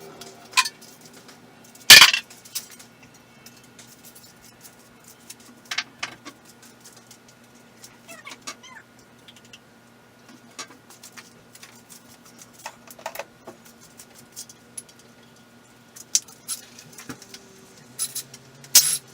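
Metal tools and engine parts being handled: scattered clinks and knocks, with one sharp loud clank about two seconds in, over a faint steady hum.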